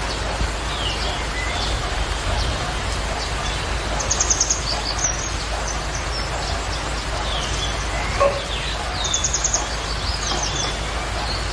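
Small birds chirping over a steady background hiss, with quick high trills about four seconds in and again about nine seconds in, and a single short knock just after eight seconds.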